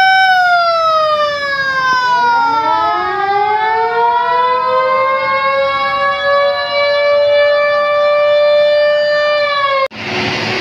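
Fire engine's electronic siren, loud: a steady tone that drops in pitch about a second in, then several pitches slide up and down across each other before it cuts off suddenly near the end.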